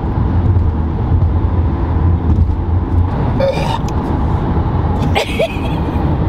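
Steady low road and engine rumble inside a car's cabin while driving at highway speed.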